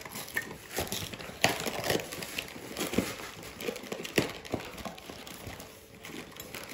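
Crinkling foil candy wrappers and a run of light clicks and taps as wrapped Mon Chéri chocolates are handled and set down on a ceramic tiered stand.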